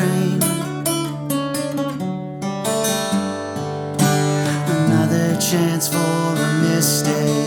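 Acoustic guitar strumming chords as part of a song.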